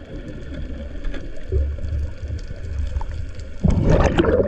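Underwater sound while scuba diving: a steady low rumble, then a loud burst of exhaled bubbles from a diver's regulator starting about three and a half seconds in.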